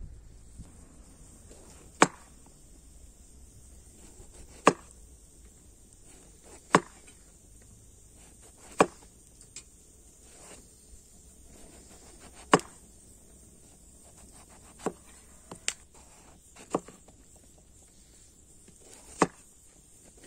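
Kitchen knife slicing peeled eggplant on a wooden cutting board: a sharp knock each time the blade reaches the board, about nine at irregular intervals a couple of seconds apart.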